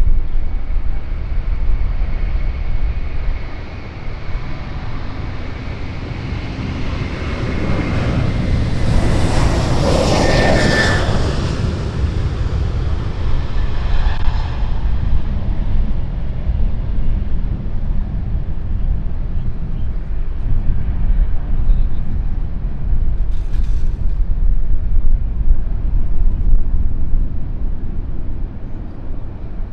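Lockheed Martin C-130J-30 Hercules's four turboprop engines running loud as the aircraft passes by. It is loudest about ten seconds in, with a high whine that dips in pitch, then settles back to a heavy rumble.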